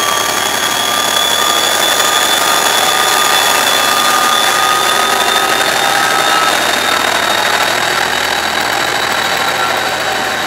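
Class 57 diesel-electric locomotive 57601's EMD two-stroke engine working under power as it draws its train away, with a high whine that rises slowly in pitch; the sound fades over the last few seconds as it moves off.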